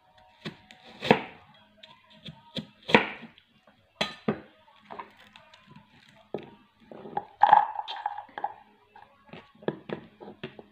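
Santoku knife slicing through a raw fennel bulb onto a plastic cutting board: a few separate crisp chops in the first half. Later come smaller knocks and clatter as a plastic bowl is handled on the counter.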